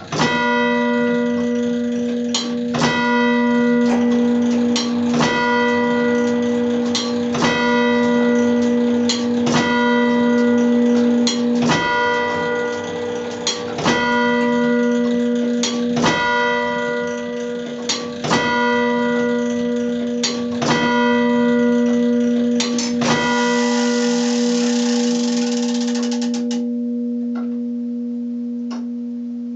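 Bronze church bell struck ten times by a turret clock's striking mechanism, about one blow every two seconds, with lighter mechanical clicks between the blows. After the last blow come a few clicks and a few seconds of rushing noise, then the bell's deep hum rings on and slowly fades.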